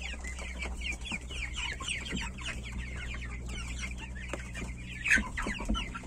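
A flock of young chickens (Mechelen cuckoo, Faverolles, Bresse Gauloise and Borkovska Barvista pullets and cockerels) peeping without a break: many short, high-pitched, falling peeps overlap, several a second, with one louder call about five seconds in.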